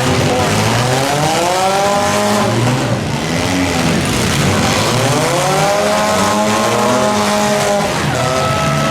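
Compact demolition-derby car engines revving hard, their pitch climbing and falling twice over a heavy din of noise, with a steady high whine coming in near the end.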